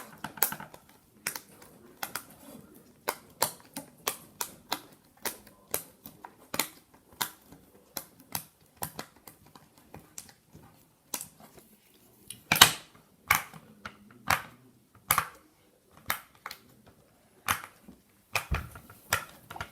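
Bubbles of a hard-base silicone pop-it fidget toy being pushed through one after another, a short sharp pop about twice a second at an uneven pace, with one louder pop about two-thirds of the way through.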